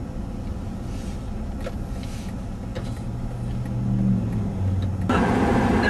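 Car running on a snowy road, heard from inside the cabin: a steady low rumble of engine and tyres, with the engine note rising as the car pulls away in the last few seconds. Near the end the noise jumps suddenly to a louder, fuller roar.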